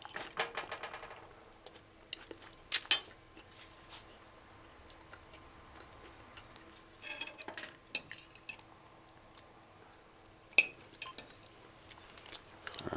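Metal fork scraping and clinking against a china plate while eating chickpea and saltfish stew: a scraping stretch about the first second, then a few scattered sharp taps, with quiet between.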